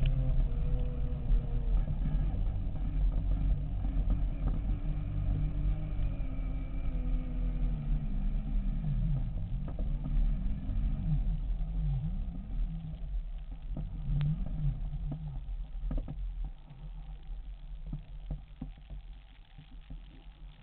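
Segway x2's electric drive whining, its pitch gliding up and down with speed, over a low rumble of tyres on a gravel track. It slows and grows quieter over the last few seconds, with scattered clicks.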